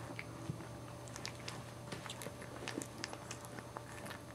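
Two-week-old Boxer puppies mouthing and licking each other's faces, making faint, scattered wet smacks and clicks over a low steady hum.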